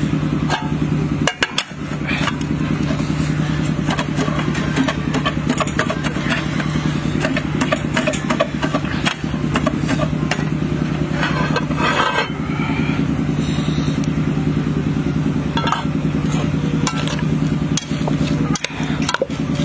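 A steady low hum with clinks and scrapes of a metal spoon tossing vegetables in a metal pot.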